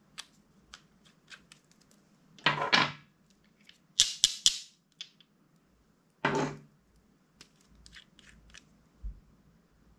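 Clear slime being squished and worked by hand, giving short wet pops and crackles. Three louder bursts come about two and a half, four and six seconds in, with faint clicks between them.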